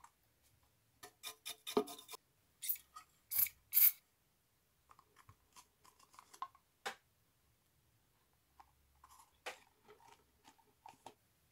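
Hands handling loudspeaker parts: plastic pieces of a JBL monitor's oval bass-reflex port tube clicking and knocking, with three short scraping rubs a little after the start.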